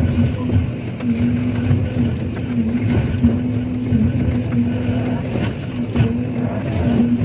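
Car-dismantling machinery running: a steady mechanical hum with a constant tone, low rumble and scattered short metallic clicks and knocks as the car is torn apart.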